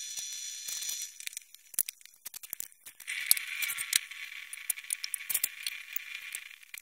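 A wrench and small metal tools clinking and rattling against the engine's aluminium cylinder head in quick irregular clicks, over a steady hiss at the start and again from about three seconds in.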